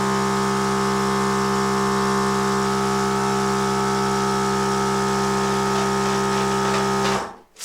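Electric balloon pump running with a steady hum as it fills a latex balloon close to its limit, then cutting off suddenly about seven seconds in.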